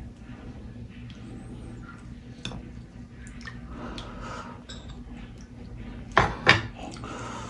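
Metal spoon scraping and clinking in a glass bowl while scooping soup vegetables, with small clicks throughout and two loud clinks about six seconds in.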